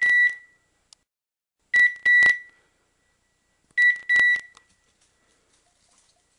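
DT Systems BTB 809 beeper collar on a hunting setter, sounding pairs of short, high, steady beeps that repeat about every two seconds.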